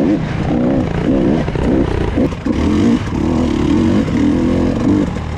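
Dirt bike engine on a trail ride, revving up and down repeatedly for the first few seconds, then settling into steadier running.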